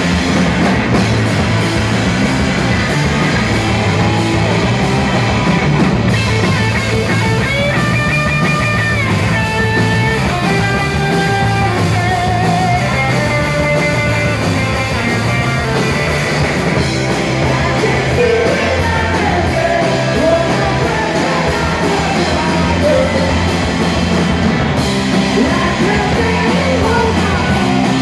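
Live punk rock band playing loud and steady: distorted electric guitars, bass and a drum kit, with a woman singing over them.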